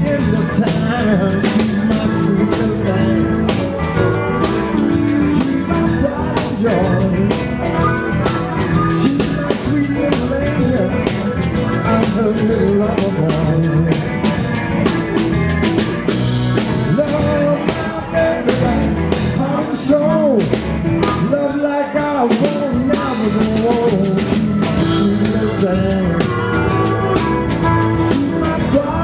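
Live blues-rock band playing with drum kit, electric guitar, bass and keyboards, with harmonica and a man singing lead. The low end thins out briefly about three-quarters of the way through.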